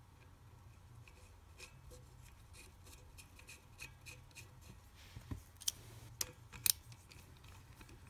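Faint small metal clicks and scrapes of a wavy washer and nut being fitted by hand onto the pivot of a VW Type 2 bus sliding-door hinge. A few sharper clicks come in the second half.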